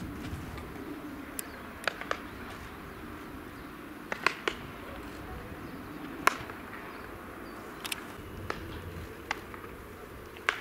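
Sharp knocks and pops of baseball practice going on around the ballpark, about a dozen of them at irregular intervals: balls cracking off bats and smacking into gloves. They sit over a steady low outdoor background.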